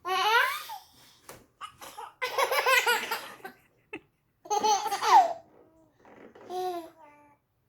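A baby laughing hard in four bursts of high-pitched giggles and belly laughs, about two seconds apart.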